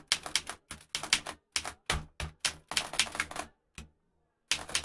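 Typewriter keys struck in quick runs of sharp strokes, with a short break about four seconds in.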